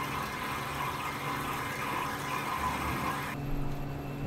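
Steady low machine hum with a hiss over it. About three and a half seconds in, the hiss drops away suddenly, leaving a quieter hum.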